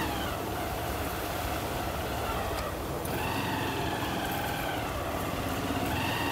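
Street ambience: a steady low rumble with faint, indistinct voices.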